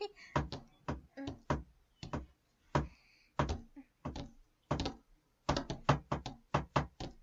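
Footsteps on a hard floor: a run of short, sharp steps, irregularly spaced, some landing in close pairs as a second set of steps falls in with the first.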